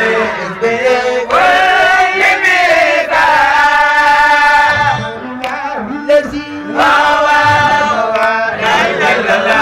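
A man's voice chanting into a microphone, in long held notes that slide and waver between pitches, in three or four drawn-out phrases with short breaths between.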